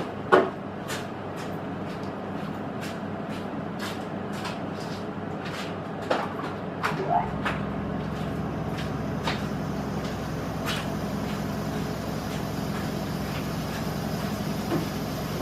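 Steady workshop machinery hum with a run of sharp clicks in the first half. About seven seconds in, an air compressor starts and adds a low, steady rumble underneath.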